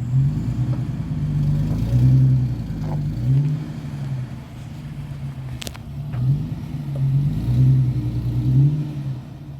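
Off-road vehicle's engine revving in repeated surges, its pitch rising and falling several times as it works to climb a rock. A single sharp click a little past halfway.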